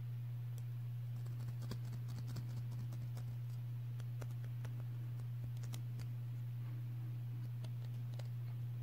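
Light, irregular plastic clicks and taps from the all-plastic Zone Lúinor L5 Beyblade layer being handled and turned in the fingers, most of them in the first two-thirds and a few near the end. Under them runs a steady low hum.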